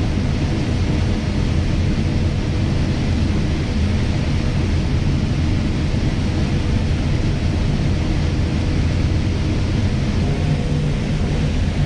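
John Deere combine harvester running steadily while harvesting corn, a constant low machine drone with a faint steady whine.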